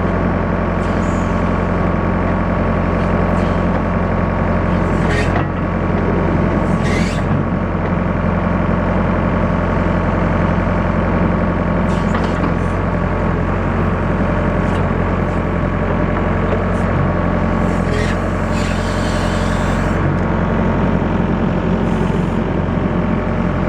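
Engine of a skid steer loader running a backhoe attachment, working at a steady speed, with a few brief hissing sounds now and then.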